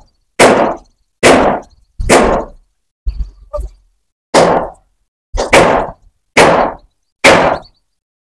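About eight sharp knocks, roughly one a second, each dying away quickly; the sound then cuts off suddenly near the end.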